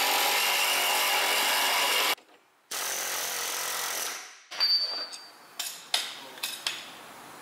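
Hand-held power tools working a seized bolt: a loud, steady tool run that cuts off about two seconds in, then a second, quieter run that fades out. After that come a few light metallic clinks as the bolt comes free.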